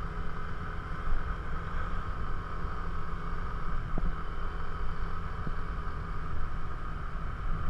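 Yamaha motor scooter running at a steady cruise, with its engine hum mixed with wind rushing over the microphone.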